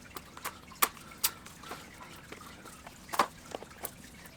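A new bicycle chain being unpacked: a string of irregular sharp clicks and crinkles from its packaging.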